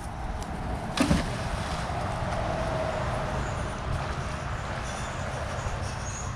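A heavy fishing magnet splashing into the creek about a second in, then a steady low rumble and hiss.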